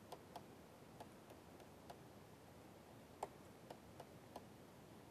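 Faint, irregular taps and clicks of a stylus on a pen tablet while handwriting, about eight in all, over near silence.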